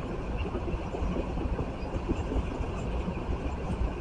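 Freight train of tank cars rolling past: a steady low rumble of wheels on rail with irregular small clanks.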